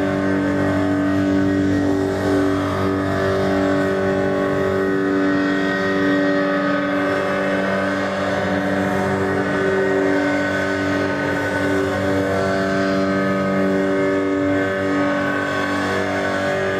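Droning accompaniment music: a held chord of sustained tones that barely changes.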